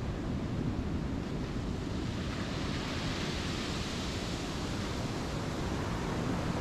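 Sea surf washing onto a beach, a steady rushing hiss that swells a little midway, with wind buffeting the microphone.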